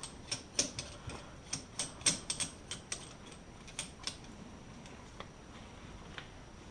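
Irregular sharp clicks and taps, a few a second, from hand work on a front coilover while a little spring preload is set in it; they thin out after about four seconds.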